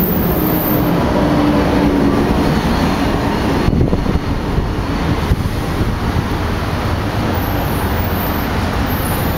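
Steady city road traffic with wind buffeting the microphone, a dense low rumble.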